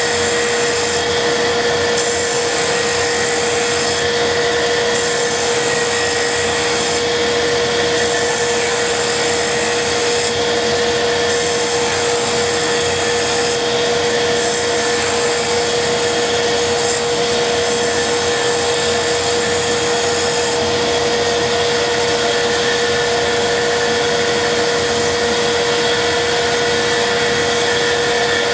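Wood lathe running with a steady motor whine while a turning gouge cuts into the spinning spindle blank, the scraping hiss of the cut coming and going every second or two with each pass. About two-thirds of the way through the cutting stops and only the lathe's running is left.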